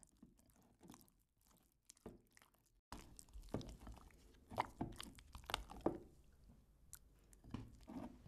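Silicone spatula stirring and folding thick custard cream in a glass bowl: irregular sticky, squelching strokes. They are faint at first and grow louder and more frequent from about three seconds in.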